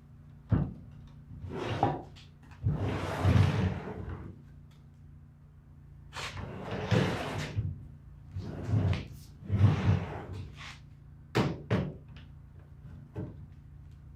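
A string of separate knocks and clunks, with a few short scraping or sliding sounds, of things being handled on a workbench. A steady low hum lies underneath throughout.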